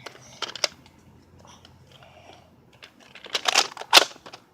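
Nerf Cycloneshock blaster being reloaded by hand: scattered plastic clicks and rattles, with a busy cluster of clicks and a sharp snap near the end.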